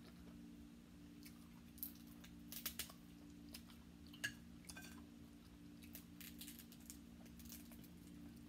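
Faint clicks and crackles of cooked crab shell being picked apart by hand, a few sharper cracks a few seconds in, over a steady low hum.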